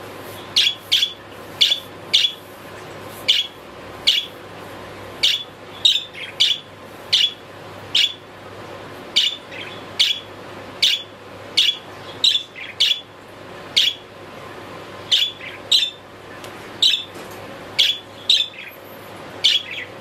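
Budgerigar chirping: short, sharp calls about once a second, sometimes in quick pairs.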